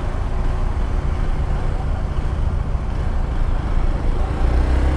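Hero XPulse 200 4V's single-cylinder engine running on the move, rising in pitch and slightly louder near the end as it revs up.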